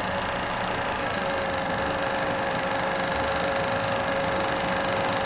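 Siruba industrial overlock machine running at a steady speed, stitching and knife-trimming the edge of a strip of fabric, with a constant motor whine.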